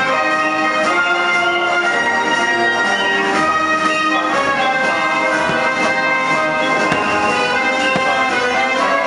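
Orchestral music with prominent brass, sustained chords played on without a break.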